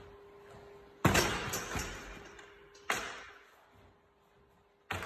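A thrown football striking something hard, two loud thuds about two seconds apart, the first followed by a couple of smaller bounces, each ringing out in a large room.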